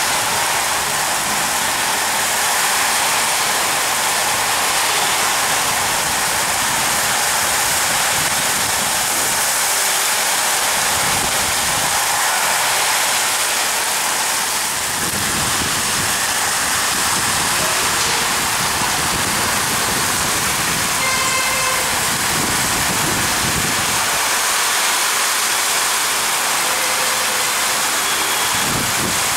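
Heavy rain pouring steadily, a loud even hiss, with low rumbles swelling now and then. A brief pitched toot sounds about two-thirds of the way through.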